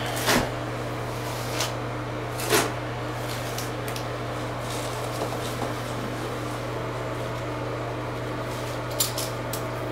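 A steady low hum, with a few short rustles and knocks as a sheet of waterproofing fabric is handled. The sharpest come about a third of a second in and at about two and a half seconds, with a quick cluster of taps near the end.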